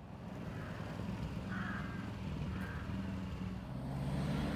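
Street ambience with a vehicle engine running as a low steady hum.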